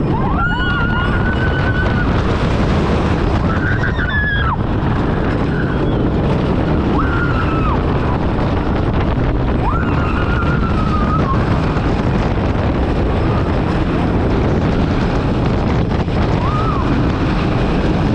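Wooden roller coaster train running at speed down its drops and through its turns: a steady loud rush of wind on the on-ride camera's microphone over the train's rumble on the wooden track. Riders scream about five times, at the start, around 4 s, 7 s, 10 s and near the end.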